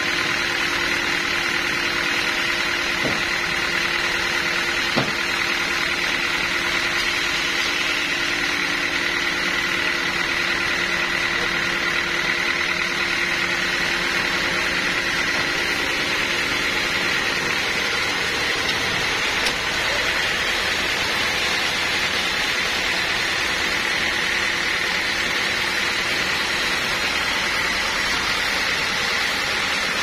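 Band sawmill running steadily without cutting, its drive and blade giving a constant hum with a high whine. A few short knocks come as the teak log is shifted onto the carriage.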